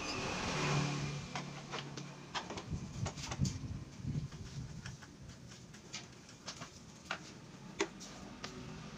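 Scattered light clicks and knocks of hands handling parts on a motorcycle, with a faint low hum in the first couple of seconds.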